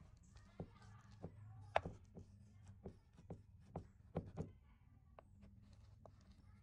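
A cleaver cutting a slab of set coconut toffee in a metal tray: a series of faint taps and knocks as the blade presses down through the toffee onto the tray, with one louder knock about two seconds in and a couple more near the end.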